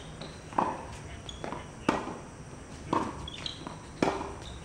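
Tennis ball being struck back and forth with rackets in a doubles rally on a hard court: about four sharp pops, roughly a second apart.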